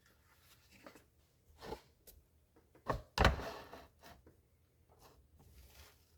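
Hands working at a car's turn-signal bulb and socket assembly: scattered small clicks and knocks, with a sharp click about three seconds in followed by a short scraping rustle.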